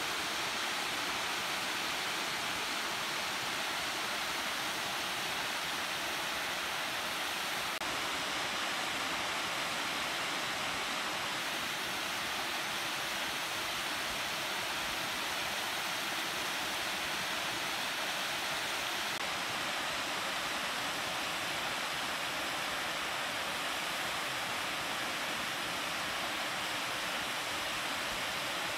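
Steady, even rushing hiss that starts abruptly and holds unchanged throughout, with no clicks or pauses.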